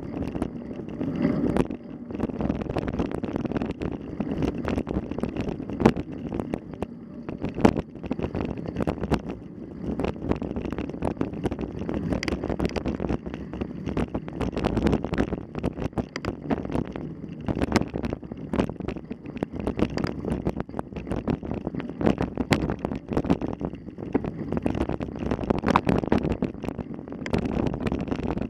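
Wind buffeting the microphone, with constant irregular rattling and knocking, as from a camera riding on a bicycle over rough ground.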